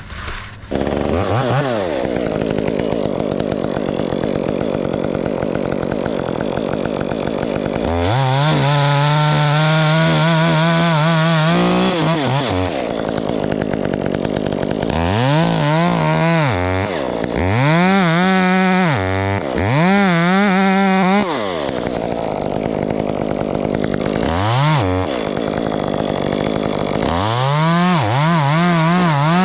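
Two-stroke chainsaw starting up about a second in and running, then revved high through a long cut of about four seconds, followed by several shorter bursts of throttle that rise and fall in pitch as it cuts wood.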